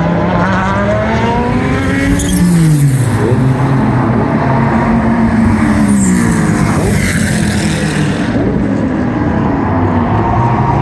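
GT2 race car engines at high revs, their pitch climbing and then dropping sharply twice, with brief crackles near two and six seconds in.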